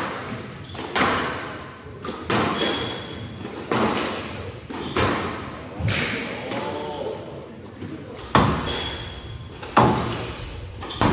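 Squash rally: the ball is struck by rackets and smacks off the court walls, making a sharp impact every second or so with an echo in a large hall.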